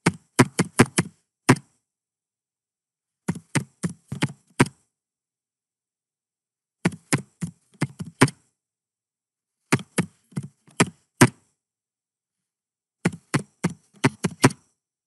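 Computer keyboard typing in five short bursts of keystrokes, each about a second and a half long, with silent gaps of a couple of seconds between: short command words typed and entered one at a time.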